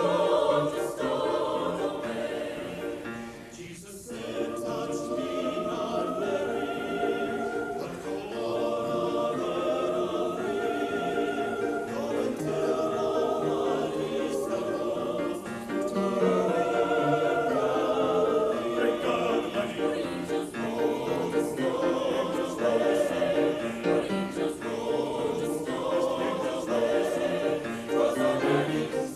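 Mixed choir singing a spiritual in parts, with a brief pause about four seconds in.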